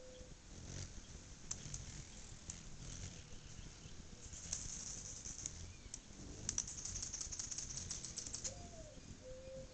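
Anna's hummingbirds at feeders: bursts of faint, rapid high chips and chattering, busiest about four to five seconds in and again from six and a half to eight and a half seconds, with the whirr of wings.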